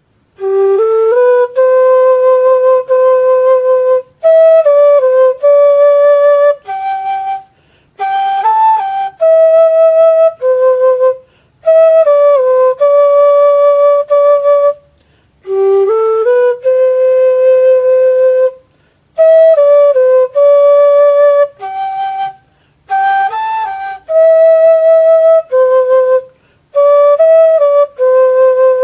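Homemade PVC-pipe flute playing a slow melody alone, held notes sliding from one pitch to the next, in phrases of a few seconds with short breaths between them; the opening phrase comes back about halfway through.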